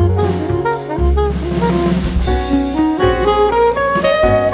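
Background jazz music: a saxophone melody over drum kit and bass, with a steady beat.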